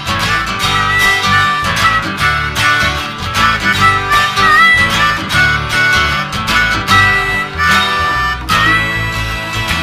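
Instrumental break in a country-style song: a harmonica playing held, bending notes over strummed acoustic guitar.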